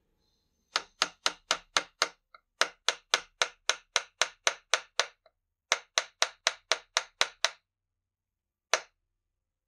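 Small brass-headed hammer tapping a punch to drive the trigger pivot pin into a chainsaw's plastic rear handle. The taps are sharp and quick, about four a second, in three runs with short pauses, then one last tap near the end.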